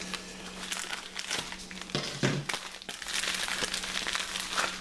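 Plastic and paper packaging crinkling and rustling irregularly as a wrapped parts-kit item is handled and unwrapped.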